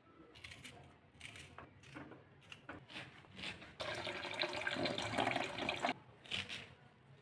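Water from a kitchen tap, first in short splashes, then running steadily into a vessel for about two seconds before it stops.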